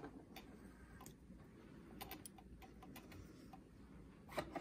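Faint, irregular light clicks and taps from hands working at the needle and presser-foot area of an Atlas sewing machine while threading it, with two louder clicks near the end.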